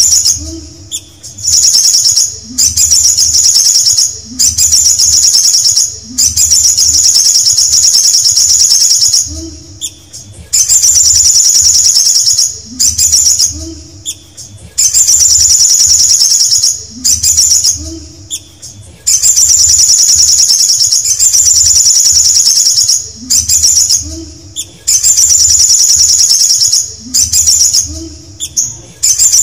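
Caged male olive-backed sunbird singing loud, rapid, high-pitched trilled phrases, each a second or two long, repeated every couple of seconds with short pauses between them.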